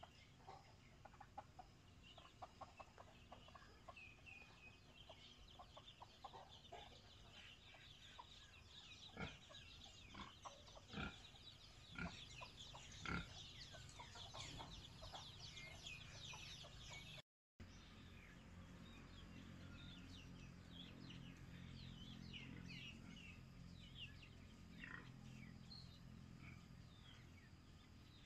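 A brood of chicks peeping continuously in high, short chirps, with a hen clucking a few times around the middle. After a brief break, only a faint low background hum with scattered bird chirps is left.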